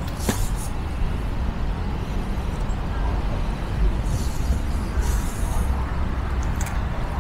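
Road traffic rumbling, with a few short hisses.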